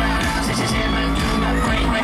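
Loud live band music with rock guitar and singing, played through a concert sound system and recorded from the audience.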